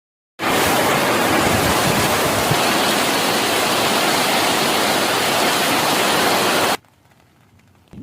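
Heavy rainstorm downpour: a loud, steady hiss of rain that starts about half a second in and cuts off abruptly near the end.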